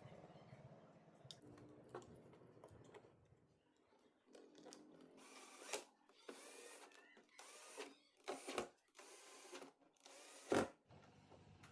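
Small tools and parts being handled: scattered light clicks and brief scraping sounds, with a sharp clack about halfway and a louder one near the end.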